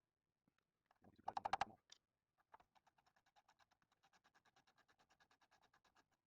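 Faint, rapid clicking: a short cluster of louder clicks about a second in, then a steady run of light clicks at about ten a second that stops shortly before the end.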